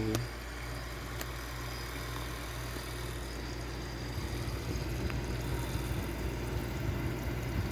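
A steady low hum with an even hiss over it, growing slightly louder and rougher about four seconds in.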